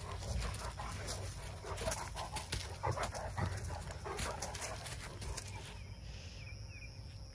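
Two Great Danes play-wrestling mouth to mouth: panting, with quick clicks and scuffling sounds that thin out near the end.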